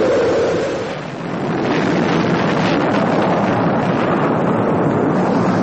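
Rocket engines at liftoff: a loud, steady rush of noise that dips briefly about a second in.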